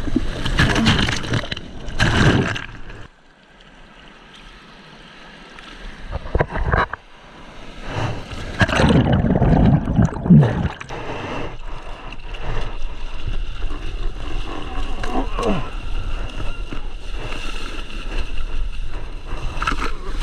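Water splashing and churning against a waterproof action camera in breaking surf. About three seconds in the sound drops to a muffled underwater rush as the camera goes under, the turbulence swells loud again around eight seconds, and after that water sloshes steadily against the camera at the surface.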